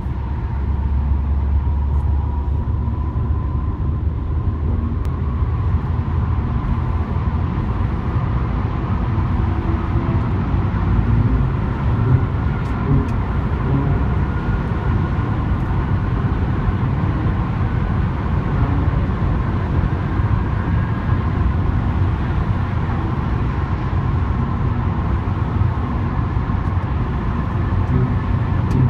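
Audi A5 driving fast through a road tunnel, heard from inside the cabin: a steady low rumble of engine, tyre and road noise with a faint whine above it.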